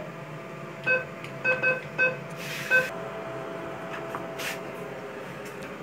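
ATM keypad beeping as keys are pressed: a run of short beeps, all at the same pitch, about five in the first three seconds, over a faint steady hum from the machine.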